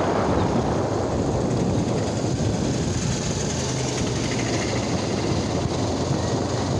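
Motorcycle engine running steadily at road speed, with wind rush over the microphone.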